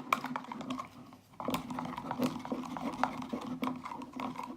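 Utensil stirring glue and green food colouring in a bowl, with irregular clicks and taps against the bowl. A steady low hum runs underneath.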